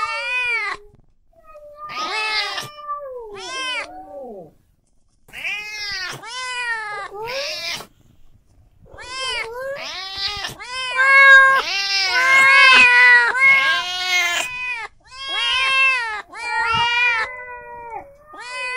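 Domestic cats meowing over and over, one long drawn-out meow after another with short gaps. About halfway through the meows come thicker and louder, almost back to back.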